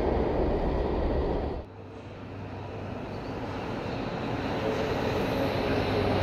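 Metro trains in underground stations: the steady rumble of an approaching train cuts off suddenly about one and a half seconds in. Then a rubber-tyred Alstom/Concarril NM-73 metro train pulls into the platform, growing steadily louder, with a whine coming in over the rumble in the last couple of seconds.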